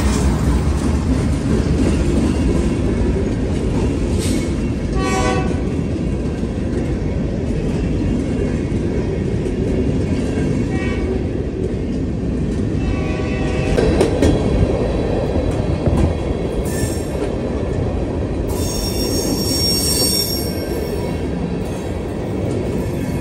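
Freight train passing close by: a KCS diesel locomotive going past at the start, then loaded stone hopper cars rolling by with a steady rumble and clatter of wheels on rail. A high wheel squeal comes in for a couple of seconds near the end.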